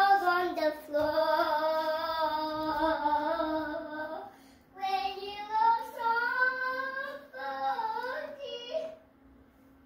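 A child singing long, held, wordless-sounding notes that waver and glide in pitch, in two main phrases with a short break near the middle, stopping about a second before the end.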